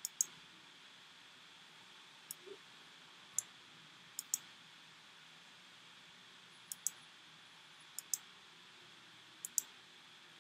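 Computer mouse clicks: about a dozen short, sharp clicks every second or so, several in quick press-and-release pairs, over a faint steady hiss.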